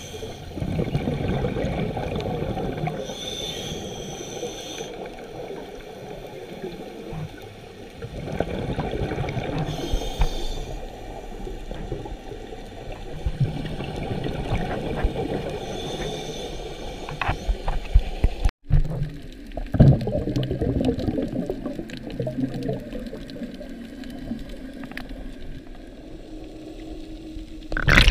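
Underwater sound picked up by a camera's microphone while swimming over a reef: a muffled, rushing watery rumble that swells and fades, with a brief dropout about two-thirds of the way through.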